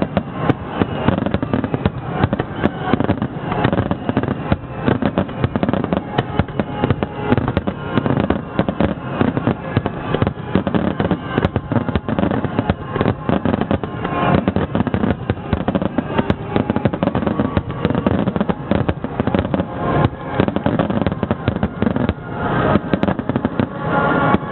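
Fireworks finale barrage: a dense, unbroken run of overlapping bangs and crackles with no pause between shells.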